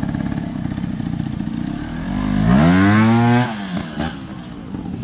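Motorcycle engine running with a rapid pulsing beat, then revved hard about two and a half seconds in: the pitch rises and holds for about a second, then drops back to a quieter running.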